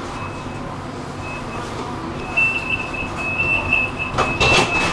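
A standing tram hums while a high electronic warning beep sounds, briefly at first and then as a fast, pulsing beeping for the last couple of seconds, typical of a door-closing warning. A louder clatter comes near the end.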